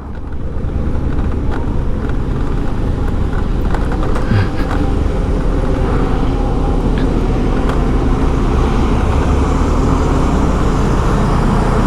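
Steady road traffic noise: motor vehicles running close by, with a continuous low engine rumble.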